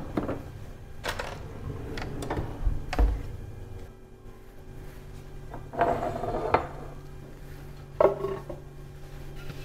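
Kitchen items handled and set down on a stone countertop: light knocks about one, two and three seconds in, a clatter around six seconds, and a clink at a glass Pyrex measuring jug about eight seconds in, over a low steady hum.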